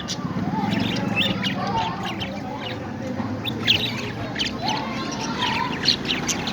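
Pet parrots chirping and squawking: a busy scatter of short, sharp high chirps with a few lower sliding calls between them, the loudest chirps a little past halfway and near the end.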